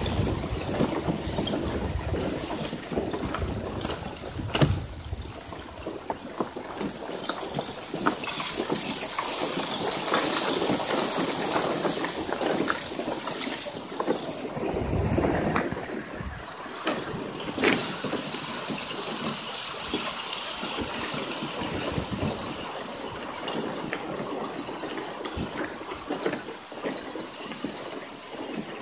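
Kayak moving through a field of broken-up, needle-like spring lake ice: a continuous crackling and tinkling of ice fragments against the boat, with a few louder knocks.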